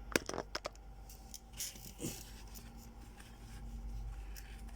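Handling noises from new running shoes being put on: a quick run of small clicks and taps at the start, then a soft scrape or two, over a faint steady hum.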